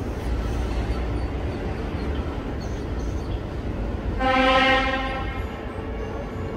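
Steady low rumble of street traffic, with one steady-pitched vehicle horn honk about four seconds in, lasting about a second.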